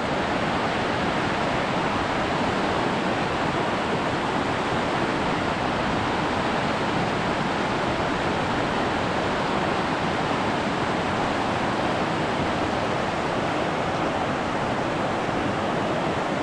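Shallow mountain river rushing fast over rocks in white-water rapids, a steady even rush of water.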